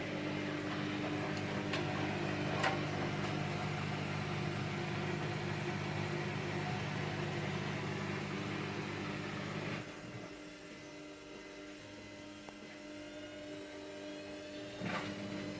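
Haier HW70-1479 front-loading washing machine running in its wash cycle before the spin: a steady low motor hum while the drum turns, which drops away about ten seconds in as the drum stops.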